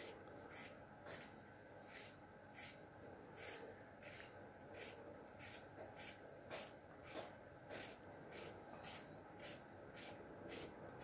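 Knife slicing cucumbers thinly, a faint crisp cut about twice a second in a steady rhythm.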